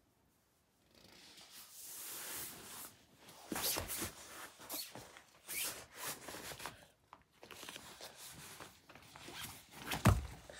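Rustling and rubbing of a pop-up play tent's fabric as a toddler moves about and crawls through its doorway, starting about a second in, with one loud thump near the end.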